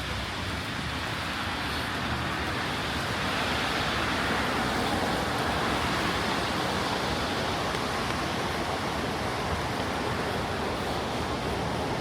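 Steady rain on a city street mixed with traffic hiss from tyres on wet road, swelling a little a few seconds in and then holding.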